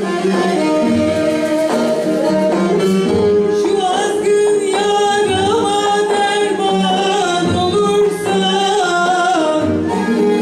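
A woman singing a Turkish folk song (türkü) in a high, ornamented voice with vibrato, backed by bağlama saz and a folk ensemble with a low drum beat.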